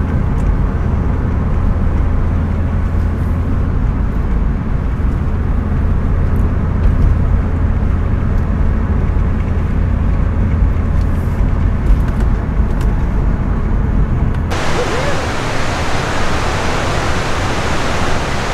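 Steady low rumble of a vehicle in motion. About fourteen seconds in it cuts abruptly to the loud, even rush of fast-flowing creek water.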